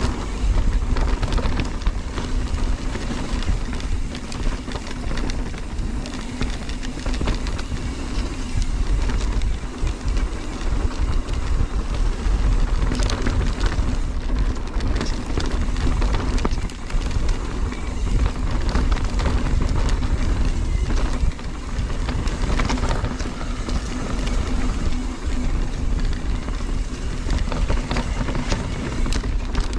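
Mountain bike riding down a dirt singletrack: low wind rumble on the microphone, tyres rolling over dirt and leaves, and the bike rattling and knocking over bumps throughout.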